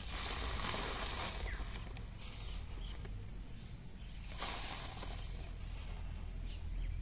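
Handfuls of dry, sandy soil scooped and poured into a cut-open plastic rice packet used as a pot, a rustling hiss of soil against the packet. It comes in two spells: one at the start lasting over a second, and a shorter one about four and a half seconds in.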